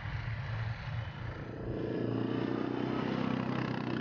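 ATV engine running on a dirt trail, its steady note growing louder about a second and a half in.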